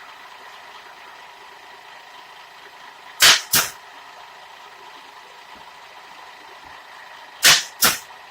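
Two pairs of sharp, loud bangs, the two in each pair about a third of a second apart and the pairs about four seconds apart.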